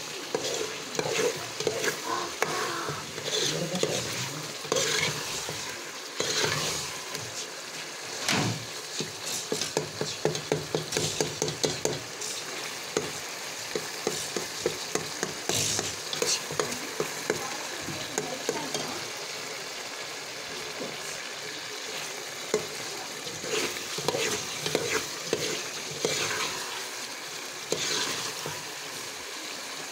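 Chicken karahi sizzling and bubbling in a metal pot while a metal ladle stirs and scrapes through it. There is a steady frying hiss, with a run of quick clicking scrapes of the ladle against the pot about ten seconds in.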